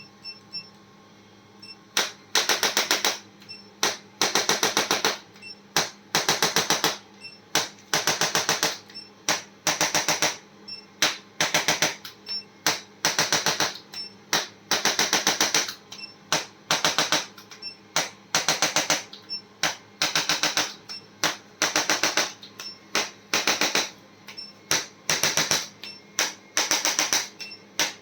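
Rapid mechanical clicking in short bursts, about one burst a second, each a quick run of sharp clicks; it starts about two seconds in.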